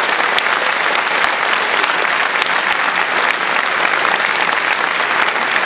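Audience applause: many hands clapping at a steady level throughout.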